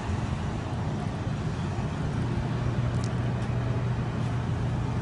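Steady low hum of city traffic.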